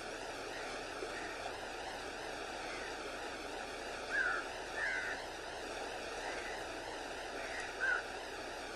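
Steady rushing of choppy, wind-whipped water, with three short, higher-pitched calls standing out about four, five and eight seconds in.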